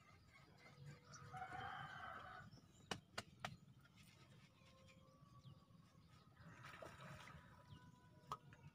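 Faint outdoor quiet with a distant rooster crowing twice, and a few sharp clicks about three seconds in and again near the end.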